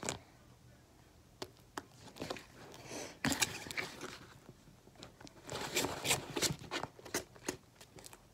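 Fluffy slime of glue, shaving cream and contact solution being mixed, with irregular sticky crackling and clicking squelches that come in two busier stretches, as the mix clumps together.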